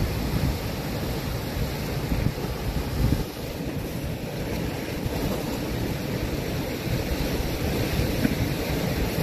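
Ocean surf breaking and washing over black volcanic boulders in a steady rush, with wind buffeting the microphone.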